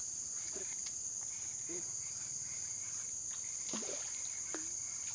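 Steady high-pitched chorus of insects shrilling without a break, with a few short faint sounds scattered over it.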